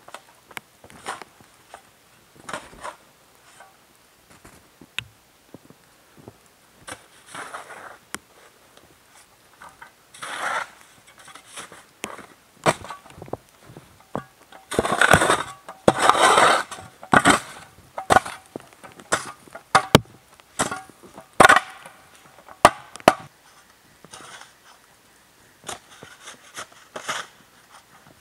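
A short-handled shovel digging into snow in irregular scoops, crunching and scraping, with the blade scraping over sticks and frozen ground beneath. The loudest run of strokes comes about halfway.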